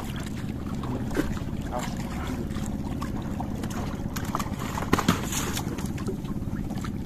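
Small fishing boat's engine idling steadily, with a couple of short knocks in the boat, the sharpest about five seconds in.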